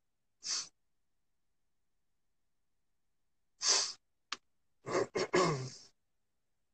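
A man's breathing close to a phone microphone: a short exhale about half a second in, a longer sigh a few seconds later, a small click, then a breathy murmur with a little voice in it near the end, with dead silence between.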